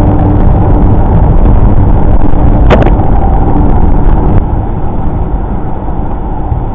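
Steady road and engine rumble inside a car cabin while driving at speed, with one sharp click a little under three seconds in. The rumble drops somewhat just after four seconds in.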